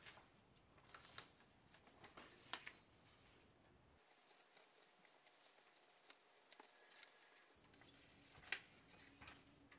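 Near silence with a few faint rustles of magazine pages and loose paper sheets being leafed through and handled, the clearest near the end.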